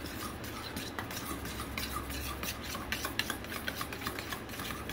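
A metal spoon stirring and scraping a thick, lumpy coleslaw dressing around a stainless steel mixing bowl, with irregular light clinks of the spoon against the bowl.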